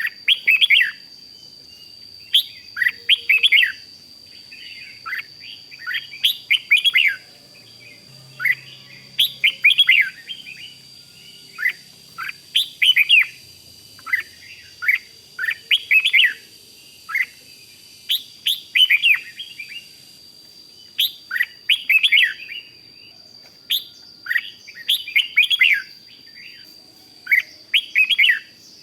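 Red-whiskered bulbul singing: short, quick phrases of bright, sliding chirping notes, repeated every second or two, over a faint steady high-pitched whine.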